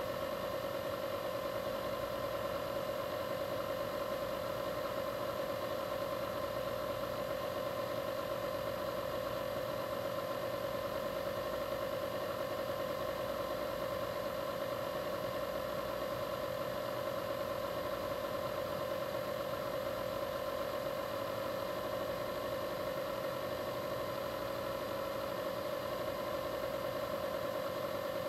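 Steady mechanical hum that holds one pitch and level throughout, with a faint high whine above it.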